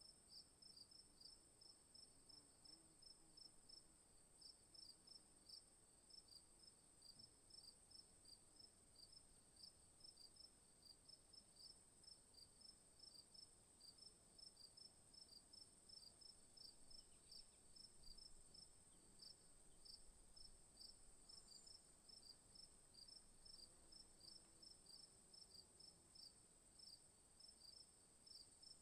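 Faint chorus of bush insects: one steady, high, unbroken trill, with another insect's short chirps repeating evenly just below it.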